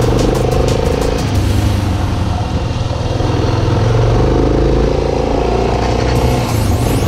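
Yamaha XT600's single-cylinder four-stroke engine running under way on a dirt track, its note dipping about a third of the way in and then picking up again. A clicking clatter comes through near the start and again near the end.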